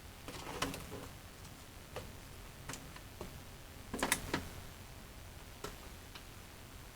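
Irregular light clicks and knocks, with a louder cluster just under a second in and another about four seconds in, over a faint low hum.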